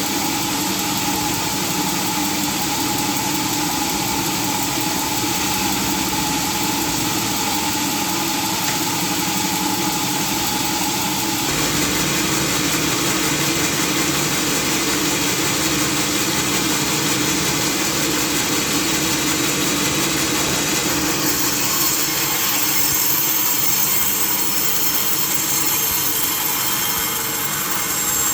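Sawmill machinery running steadily, an engine-like drone. Its tone shifts about eleven seconds in, and a brighter hiss joins it from about twenty-one seconds in.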